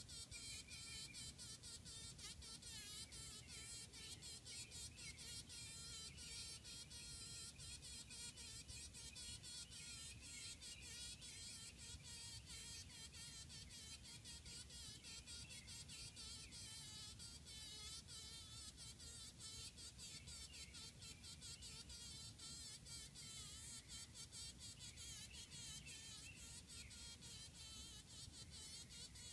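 Honey bee buzzing faintly in rapid, uneven bursts as it struggles, trapped in a spider's silk.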